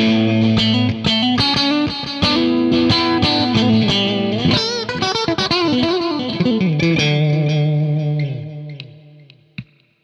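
Stratocaster-style electric guitar played through its DiMarzio Cruiser-copy pickups: a picked lead line with bent, wavering notes in the middle, then a held note that rings out and fades away, followed by a small click near the end.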